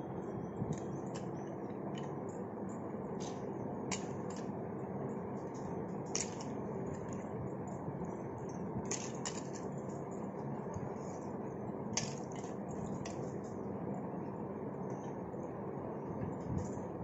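Handfuls of wet, soaked chana dal being scooped and dropped into a steel mixer-grinder jar, with a soft squish and scattered sharp clicks of the lentils and hand against the steel jar and bowl, over a steady background hiss.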